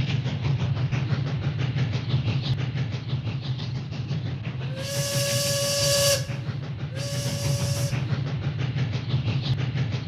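Steam train sound effect: steady rhythmic chugging and rail clatter. About halfway through come two steam whistle blasts, a longer one and then a shorter one, each with a rush of hissing steam.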